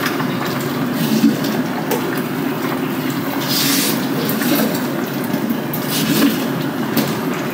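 Green curry with coconut milk simmering in a cast-iron cocotte on a gas burner: a steady bubbling hiss, with a few short knocks as vegetables and utensils are handled.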